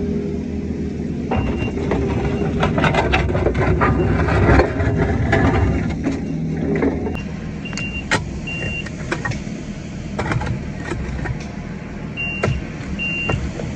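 Kobelco SK55 mini excavator's diesel engine working under hydraulic load while digging, with sharp clanks and scrapes from the bucket; the engine eases off about seven seconds in. A short high beep repeats in spells, like a reversing alarm.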